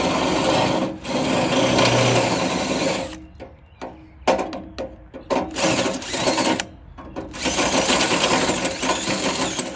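DeWalt cordless drill with a 1/4-inch bit drilling out a rivet in the metal step bracket, run in several bursts with short stops as the rivet starts to spin with the bit.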